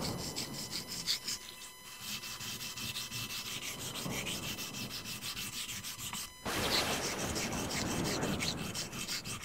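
Utility-knife (cutter) blade being sharpened on a wet whetstone: quick, even back-and-forth rasping strokes of steel on stone, with a short break about six and a half seconds in.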